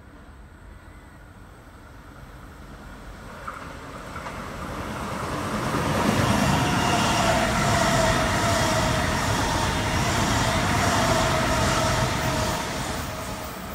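Sydney Trains Waratah A-set electric passenger train approaching and running past at speed. Its rumble builds over several seconds, holds loud with a whine that falls slightly in pitch, then starts to fade near the end.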